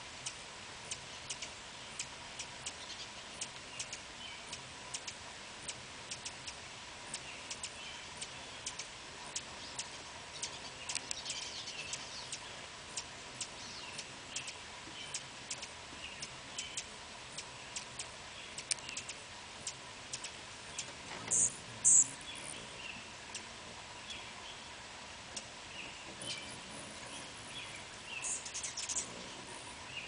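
Hummingbirds calling: a running series of sharp, high ticks, with louder high, squeaky chatter twice, about two-thirds of the way in and again near the end.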